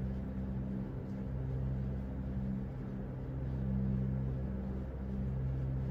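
A steady low humming drone of a few held tones that slowly swells and fades.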